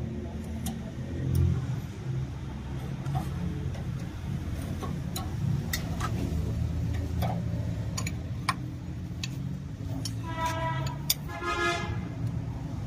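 Fiat 640 tractor's diesel engine running with a steady low rumble, with scattered sharp metallic clicks from the fittings on the injection pump. About ten seconds in, two short high-pitched tones sound one after the other.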